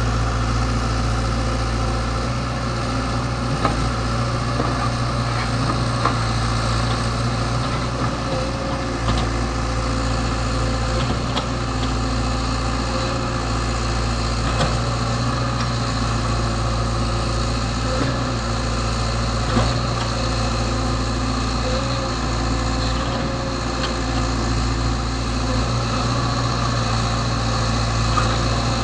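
Komatsu PC75UU mini excavator's diesel engine running steadily, with a few short sharp knocks over it.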